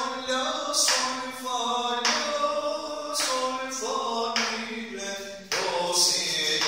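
A man sight-singing a Hüseyni peşrev in Turkish solfège, unaccompanied: he sings the note names on held pitches, moving to a new syllable and pitch every half second to a second.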